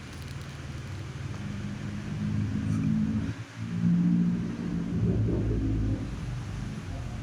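A motor vehicle's engine running, getting louder over the first few seconds and shifting in pitch, with a brief dip in the middle.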